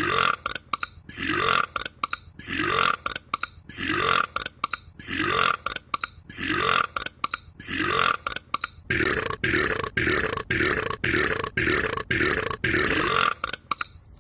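A man's loud burps repeating at an even rhythm, about one every 1.3 seconds, each rising in pitch, then quickening to about two a second for the last five seconds.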